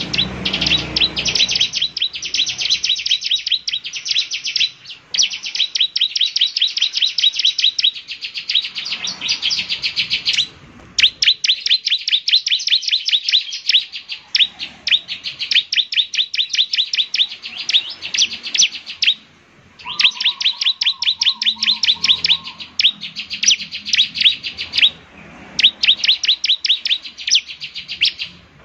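Bar-winged prinia (ciblek) singing vigorously: long runs of rapid, high, repeated chirping notes, broken by short pauses.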